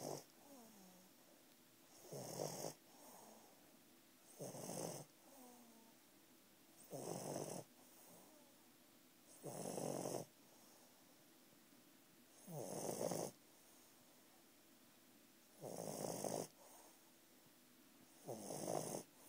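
English bulldog puppy snoring in its sleep: a snore roughly every two and a half to three seconds, each about half a second long, with softer breathing sounds between some of them.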